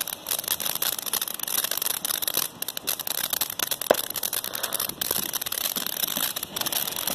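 Ground fountain firework crackling and hissing as it sprays sparks: a dense, fast crackle, with one sharper pop about four seconds in.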